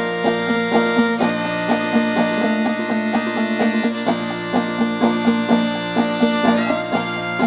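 Old-time string band tune: clawhammer banjo played with a steady plucked rhythm, with a fiddle sustaining notes over it.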